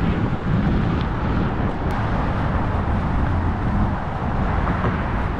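Steady outdoor noise of road traffic, with wind buffeting the microphone.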